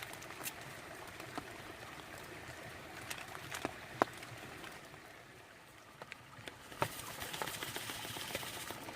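Steady rushing babble of a small brook in spate, with a few sharp taps scattered through; the water noise grows louder about seven seconds in.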